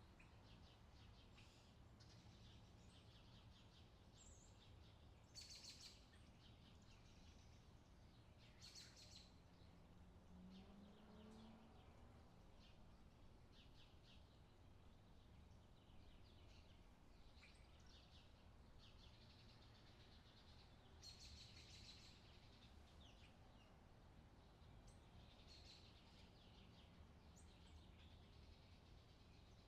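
Faint outdoor summer ambience: birds chirping now and then over a low, steady background rumble.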